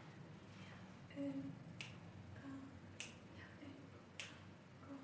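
Faint finger snaps keeping a slow, even beat, three snaps about a second and a quarter apart, with soft short low notes in between, as a count-in before an a cappella choir begins.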